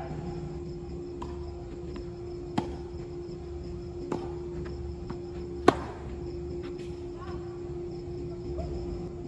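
Tennis ball struck back and forth by rackets in a doubles rally: sharp pops about a second and a half apart, the loudest near the middle. A steady hum and faint insect chirping run underneath.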